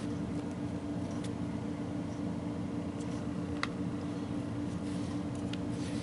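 Trading cards being handled and slid over one another, with a few faint clicks, over a steady background hum.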